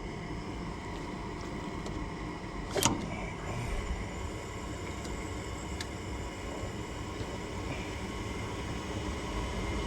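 Gas furnace running with a steady hum. A sharp click about three seconds in and a smaller tick around six seconds.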